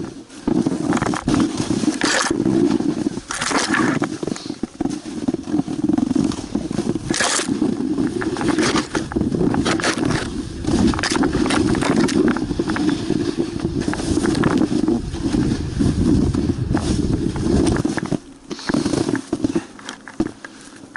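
A small motorcycle engine running steadily under load, with frequent knocks and scrapes over rough ground. The engine sound drops away near the end.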